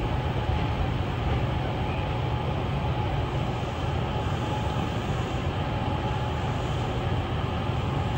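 Kintetsu electric train moving slowly, heard from inside the front car: a steady low rumble with a faint steady whine above it.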